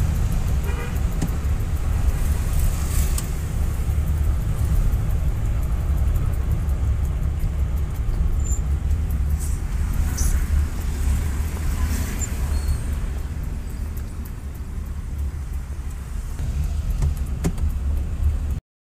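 Steady low engine and road rumble inside a moving car's cabin, with scattered faint ticks and knocks. The sound drops out briefly near the end.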